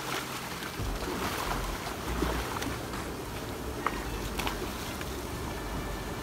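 Water splashing as fish thrash at the surface of a crowded net cage and are scooped out with a long-handled landing net, water streaming off the lifted net.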